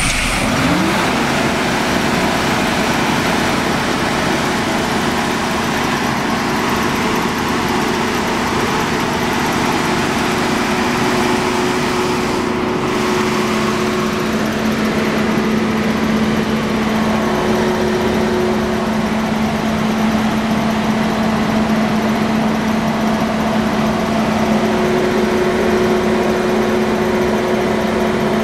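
Hercules diesel engine of a 125 kW Magnetek generator set, just started: its pitch rises in the first second, then it runs at a steady speed with an even hum.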